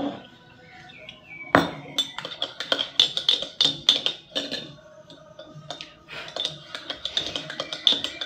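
A metal spoon clinking quickly against the inside of a ceramic mug as a drink is stirred, starting about a second and a half in, with a short pause midway, over background music.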